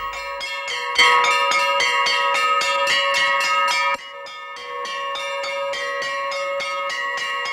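Temple bell rung rapidly in worship, about six strikes a second, its ringing tones running on between strikes. It comes in sharply about a second in and drops in loudness about four seconds in.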